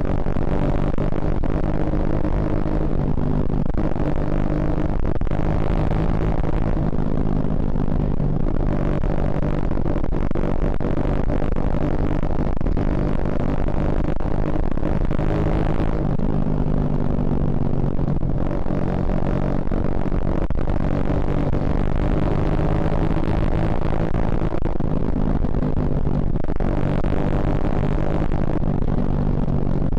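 Suzuki Shogun Axelo R 2011 underbone motorcycle's single-cylinder four-stroke engine running under way, its pitch rising and falling gently with the throttle. A rushing noise swells several times over it.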